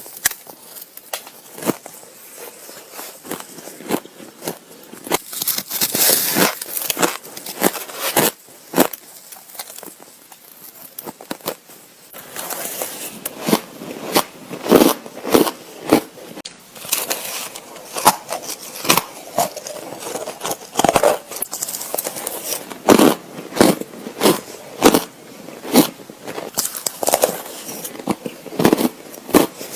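A person biting into and crunching ice with sharp, cracking crunches close to the microphone. The bites come sparsely at first, then become denser and louder from about twelve seconds in.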